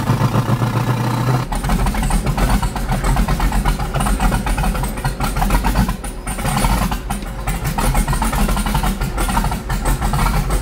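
Twin-turbo 5.3 L V8 pickup engine and exhaust heard from inside the cab, loud enough that the owner calls it too loud. It drones steadily, then about a second and a half in it drops to a deeper, uneven sound under load. The engine is running very rich, which the owner blames for it struggling in first gear.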